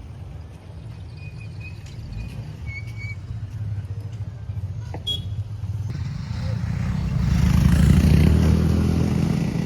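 A motor vehicle's engine running with a low rumble. It grows louder to a peak about eight seconds in as the vehicle passes close, then eases off.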